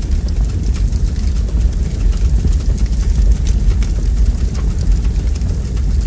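Wood fire burning in a fireplace: logs crackling and popping in sharp, irregular snaps over a steady low rumble.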